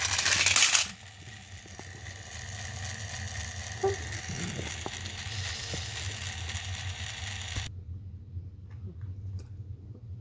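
Battery-powered toy train engines' small electric motors and plastic gears whirring, with a loud clattering rattle in the first second. The whirring cuts off abruptly about three-quarters of the way through, leaving a few faint clicks.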